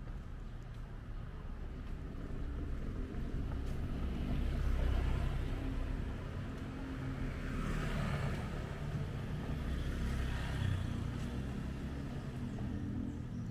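Street traffic: motor vehicles passing with a low engine rumble and tyre hiss, swelling a few seconds in and again later as vehicles go by, including a motorbike near the end.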